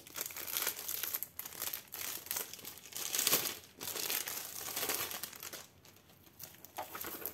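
Crinkling and rustling of the clear plastic packaging of a diamond painting kit as hands handle and unwrap it, in irregular bursts that are loudest a little over three seconds in.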